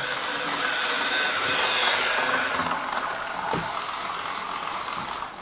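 Model train running on the layout's track: the steady whirr of its small electric motor and wheels, with a faint whine, dropping away shortly before the end.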